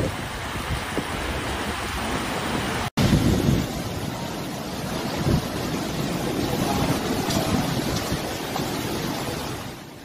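Storm wind blowing across the microphone over rushing water. The sound drops out for an instant about three seconds in, then goes on as steady wind noise.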